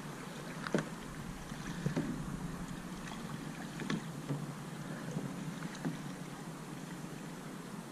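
Kayak paddles dipping into calm water: soft splashes and light knocks at irregular intervals, roughly every second or so, over a steady hiss of water and wind on the microphone.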